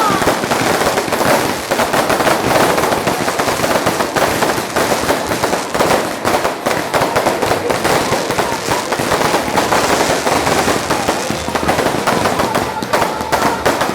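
Fireworks going off in a dense, continuous crackle of rapid small bangs.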